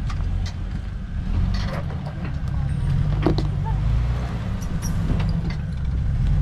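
Jeep Wrangler's engine running at low revs as it crawls slowly over rock ledges, a steady low rumble with a few short knocks from the tyres and chassis on rock.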